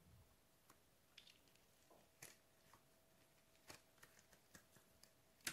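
Faint, scattered small clicks and crackles as a cut-open rubber stress toy is handled and its skin pulled apart, with a sharper click near the end.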